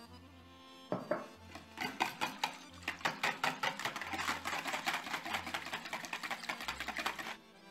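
Wire whisk beating a thin batter in a bowl, the wires clattering against the bowl in a fast, even rhythm of about six strokes a second. It starts about a second in and stops shortly before the end.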